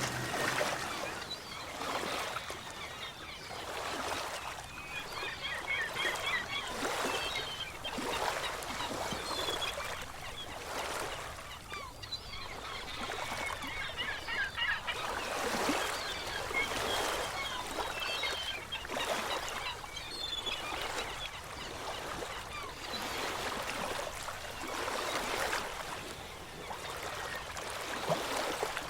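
Ocean waves washing in, swelling and fading every two to three seconds, with birds calling repeatedly through the middle.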